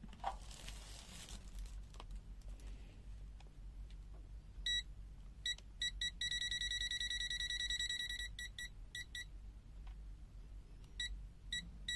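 NJTY T1 pocket multimeter's non-contact voltage (NCV) alarm beeping as the meter is held near a live cable. It sensing AC voltage without touching the wire. The high-pitched beeps come singly at first, run together into an almost continuous beep for about two seconds, then break into quick separate beeps again near the end.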